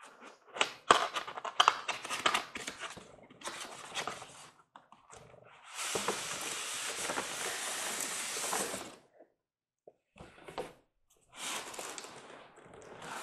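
Cardboard and styrofoam packaging being handled and pulled out of a shipping box: a run of knocks and scrapes, then a steady sliding, rustling noise about six seconds in that lasts about three seconds, and more rustling near the end.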